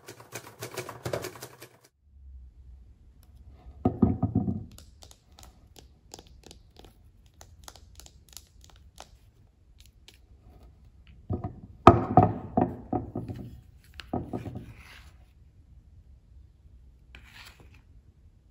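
Close-miked breaking and crumbling of a soft, moist cookie in the fingers. There are several crumbly, tearing breaks: one about four seconds in and a louder run from about twelve to fifteen seconds, with faint crackling between.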